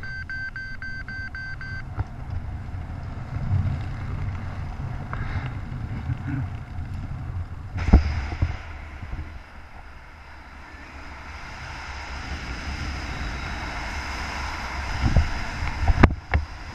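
Wind buffeting the camera microphone during a descent under an open parachute canopy, a steady low rumble with sharp knocks about eight seconds in and near the end. A rapid high electronic beeping runs through the first couple of seconds.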